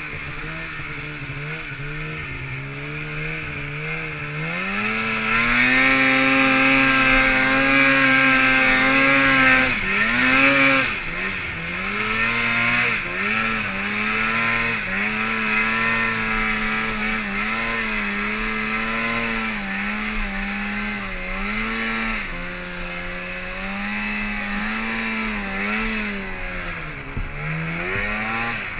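Polaris mountain snowmobile's two-stroke engine running under the rider: low revs at first, then held at high revs from about five to ten seconds in, the loudest stretch, then revving up and down with the throttle every second or two for the rest.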